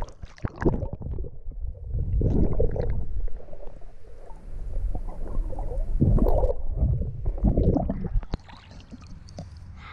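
Muffled river water sloshing and gurgling around a submerged action camera, in low, uneven rushes. Near the end the camera comes out of the water and the sound drops and turns clearer.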